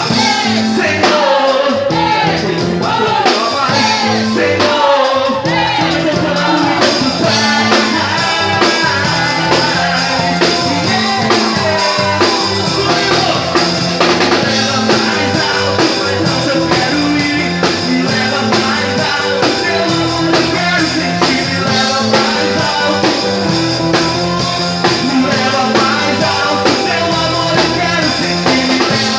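Band music in a rock style: drum kit, bass and guitar playing steadily, with a lead melody line that slides and wavers in pitch.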